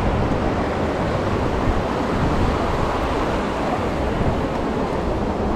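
Ocean surf washing steadily on a beach, mixed with wind buffeting the microphone.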